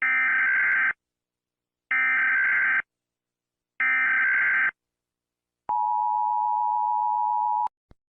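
Emergency Alert System broadcast tones: three short bursts of screechy digital data tone (the SAME header), about two seconds apart. They are followed by a steady two-note attention tone for about two seconds, which cuts off abruptly.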